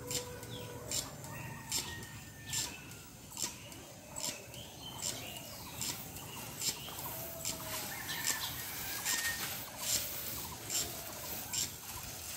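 Pesticide sprayer at work in a steady rhythm: a short sharp hiss about every 0.8 s. Birds call faintly between the strokes.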